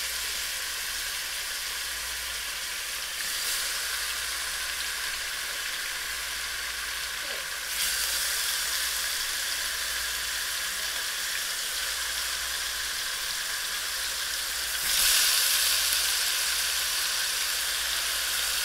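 Oxtails sizzling as they sear in hot olive oil and melted light brown sugar, the browning stage before pressure cooking. The steady sizzle swells louder three times, about 3, 8 and 15 seconds in, as more pieces are laid into the pan.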